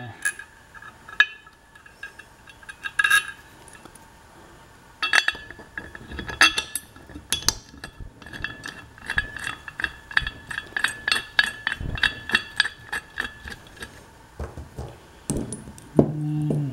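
Light metal clinks and a run of quick ticks in the middle as a steel hex bolt with a lock washer is handled and threaded by hand into the flange of a marine exhaust Y-pipe.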